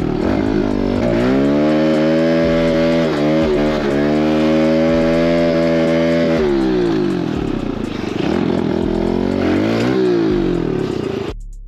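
Mini dirt bike (pit bike) engine under way: it revs up about a second in, holds a steady pitch for several seconds, then backs off and varies with the throttle, cutting out briefly near the end.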